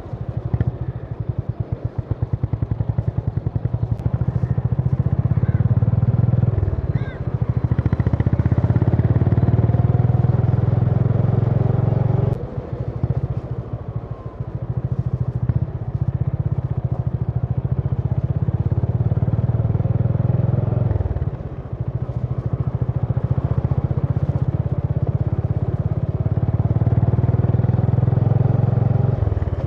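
Honda CB350 H'ness single-cylinder engine and exhaust thumping steadily under way. The engine note drops off briefly three times, then builds up again.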